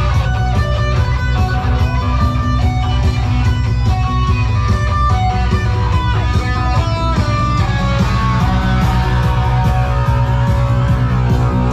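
Loud dance music played over PA speakers: plucked guitar notes over a steady, heavy bass line.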